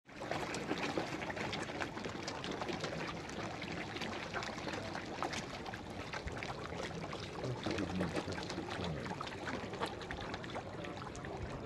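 Fire burning, a steady crackle of many small sharp pops over a hiss. It cuts in suddenly at the start.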